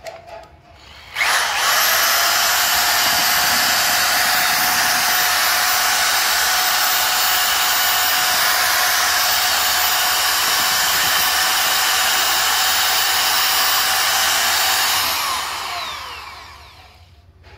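New RIDGID corded paddle mixer starting about a second in and running at a steady, loud motor whine while churning drywall texture mud in a bucket, then winding down with falling pitch near the end after it is switched off. This is the mixer's first run.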